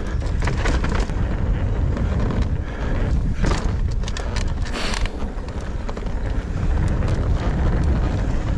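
Wind buffeting the action camera's microphone over the rumble and rattle of a Nukeproof Mega 290 mountain bike descending a steep, rough trail, with many short knocks and clicks as it runs over the ground. Two brief hissing noises cut in about three and a half and five seconds in.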